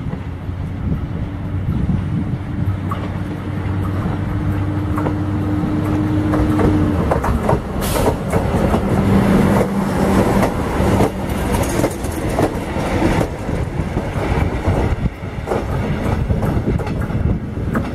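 Ganz-MÁVAG M41 diesel-hydraulic locomotive pulling out with a passenger train: a steady diesel engine note, then louder from about seven seconds in as the train passes, with wheels clicking over rail joints.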